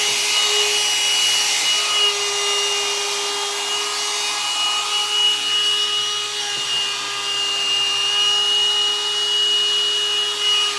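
Hot-air dryer brush running steadily: a constant motor whine over the rush of blowing air as it is worked through hair to dry it.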